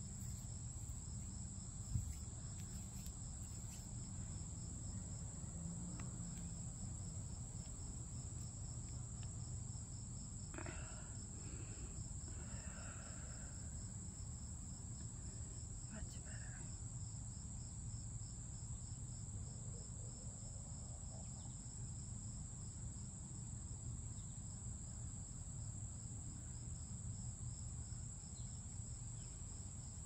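Insects chirring steadily, a continuous high-pitched trill with a faint fast pulse in it, over a low steady rumble.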